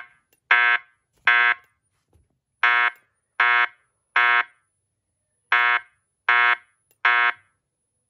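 Fire alarm speaker/strobe sounding the temporal-three evacuation tone: short beeps in groups of three, about three quarters of a second apart, with a longer pause between groups.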